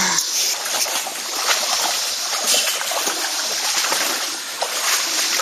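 Water splashing and sloshing as people wade on foot through shallow floodwater, over a steady rush of running water.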